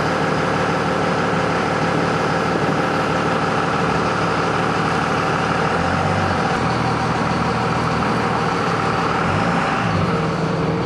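A motor vehicle running steadily with road noise, as heard while riding in it; the low engine note changes about six seconds in.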